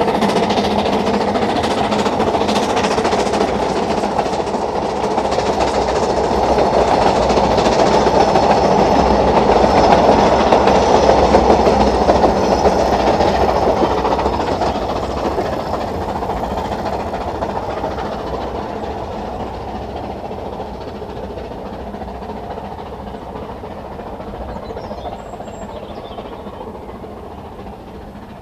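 Narrow-gauge steam train passing, its wheels running on the rails; it grows louder to a peak about ten seconds in, then fades steadily as it draws away.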